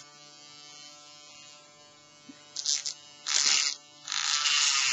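Small hand-held motorised cutting tool running with a faint steady hum, then three bursts of harsher grinding noise, the last and longest near the end, as its spinning blade cuts into the plastic seam of a laptop battery pack case.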